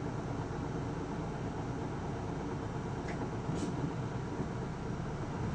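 Steady running sound of a Kawasaki city bus, a PKG-LV234L2 (Isuzu Erga) with its diesel engine, heard from inside the cabin: a low engine and road rumble, with two faint clicks or rattles around three seconds in.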